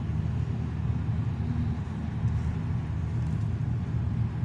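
Steady road noise of a car driving at speed, a low tyre and engine rumble heard from inside the cabin.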